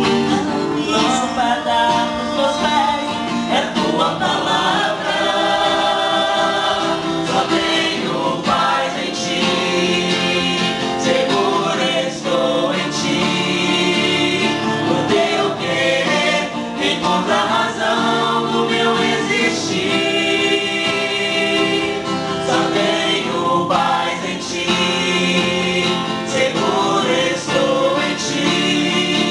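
Gospel worship song sung live by several singers on microphones together, over instrumental accompaniment.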